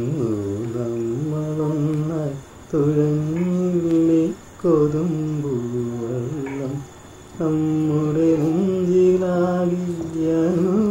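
A solo voice singing a slow, unaccompanied melody. The notes are long held and gently ornamented, in phrases of two to three seconds with short breath gaps between them.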